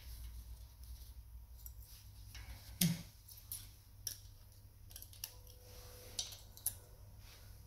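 Light metallic clicks and taps of a wrench and feeler gauge working on the rocker arm and adjusting screw of a Steyr-Puch engine while the valve clearance is being set. The clicks come irregularly, with one louder knock about three seconds in.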